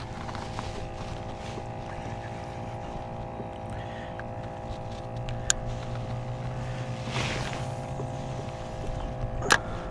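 A boat motor running steadily with an even hum, with two sharp clicks, one about five and a half seconds in and one near the end.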